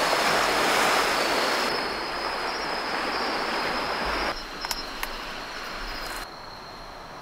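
Night seaside ambience: surf washing steadily, with a thin, steady high insect trill over it. The sound drops abruptly in level about four seconds in and again near six seconds.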